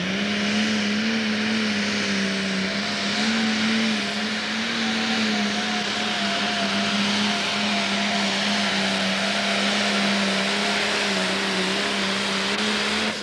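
Turbocharged diesel engine of a Pro Stock pulling tractor held at full throttle through a pull, hauling the weight sled. The engine note stays loud and nearly constant in pitch, wavering slightly as the tractor drags the sled down the track.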